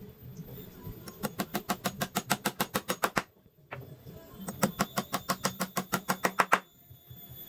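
Rapid sharp tapping, about seven taps a second, in two runs of about two seconds each with a short pause between them.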